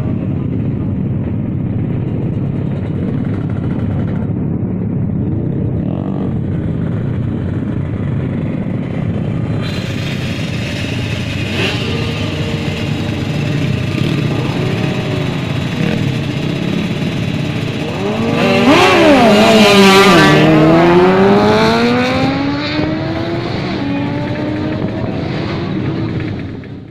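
Drag-racing motorcycle engines running and revving. About 18 seconds in, one engine gets louder and its pitch climbs, then sweeps down over the next few seconds as a bike runs at full throttle.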